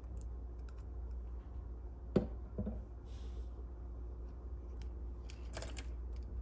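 Red plastic measuring spoons on their ring being handled: scattered light clicks and clacks, with a louder knock about two seconds in, another just after, and a sharper clatter near the end.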